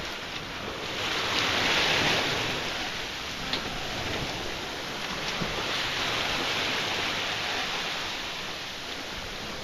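Open-ocean waves rushing and hissing along a moving boat's hull. The wash swells louder about a second in and again around five seconds in.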